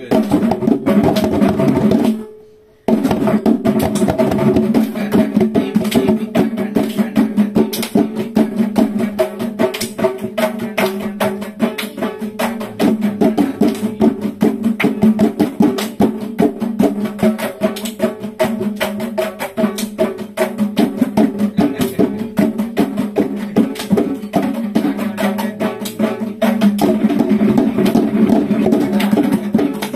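Mridangam-style double-headed barrel drums played by hand together in a fast, dense rhythm, the tuned drumheads ringing under the strokes. The playing stops for under a second about two seconds in, then carries on.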